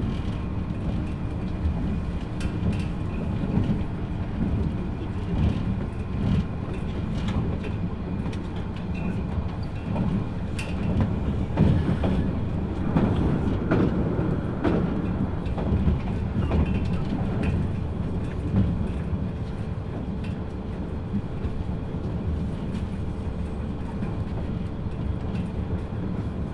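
Running sound inside a JNR 183 series electric multiple unit motor car (MoHa 182) with MT54 traction motors, heard at speed: a steady rumble with a faint hum and wheels clicking over rail joints. It grows louder and busier for a few seconds around the middle.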